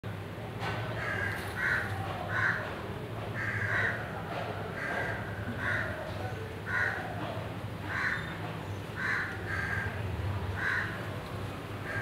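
A bird calling over and over, about a dozen short calls, unevenly spaced roughly a second apart, over a steady low hum.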